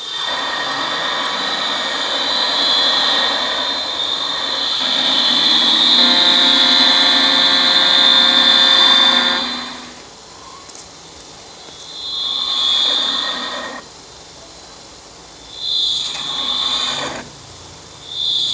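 Sound effect of a locomotive: loud running noise with a high squeal, and a horn sounding for about three and a half seconds until it cuts off near ten seconds in. After that come shorter bursts of screeching noise, the second a double one, over a quieter rumble.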